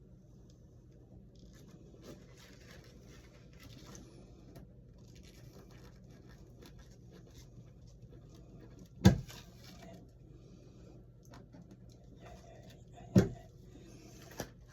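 Quiet handling noises of hands and tools working on a wall switch's wiring, with light rustling and two sharp knocks, about nine and thirteen seconds in.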